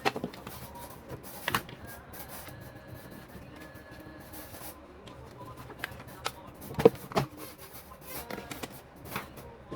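Scattered clicks and knocks of a steam iron's parts and tools being handled during a repair, with the two loudest knocks close together about seven seconds in.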